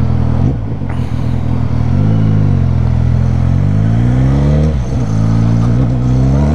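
Motorcycle engine and exhaust pulling hard through the gears: the pitch climbs steadily, drops sharply at an upshift about five seconds in, then climbs again.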